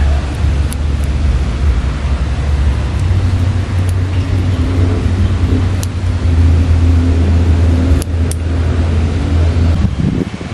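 Steady low engine rumble, with several sharp snips of bonsai scissors cutting twigs.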